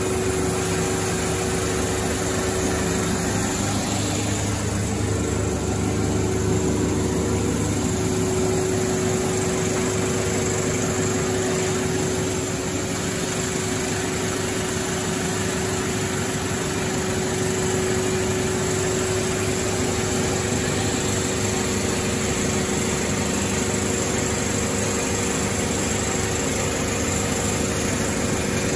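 Timesaver wide belt sander with a 20 hp motor running steadily, a constant machine hum with one clear steady tone under an even whir.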